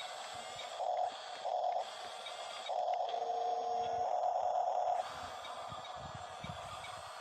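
Electric drive motors of a stock toy-grade RC bulldozer whining. There are two short bursts about a second in, then a longer run of about two seconds, over a steady hum.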